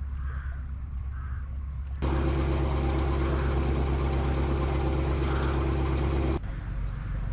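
Narrowboat engine running steadily while cruising, a low even hum. It turns abruptly louder and fuller about two seconds in, then drops back near the end.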